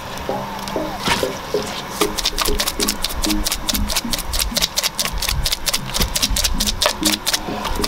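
Background music: a melody of short, stepping low notes, with a fast, even ticking beat that comes in strongly about two seconds in.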